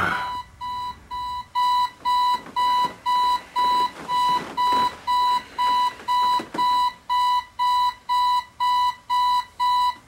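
Digital alarm clock beeping: short, even, high beeps at a single pitch, about two a second. The first couple are quieter, then it keeps on at full level.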